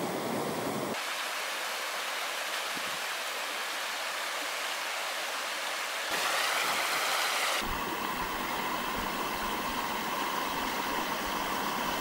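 Small woodland stream rushing and splashing over rocks, a steady noise of flowing water that changes abruptly about a second in, about six seconds in and again about a second and a half later.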